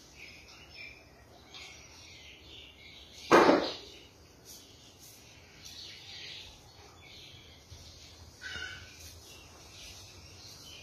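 Birds chirping in the background, with one loud sudden sound about three seconds in and a second, fainter one about eight seconds in.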